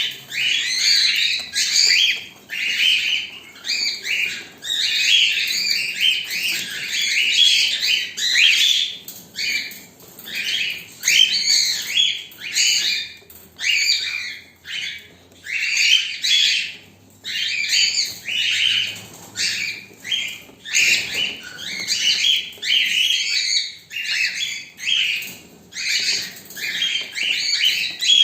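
Pet parrots calling without pause, a busy run of chirps and squawks rising and falling about once a second.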